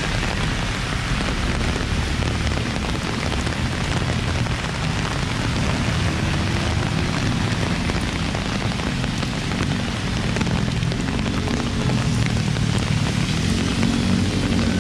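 Heavy rain falling on pavement, a steady hiss, with road traffic rumbling beneath it. A vehicle engine grows louder near the end.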